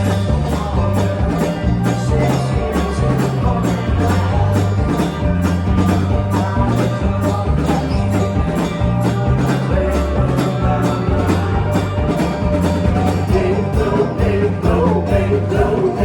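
Live country-rock band playing an instrumental passage: a walking bass line under a steady, fast beat of even percussive strokes, with guitar, and a melodic line coming up near the end.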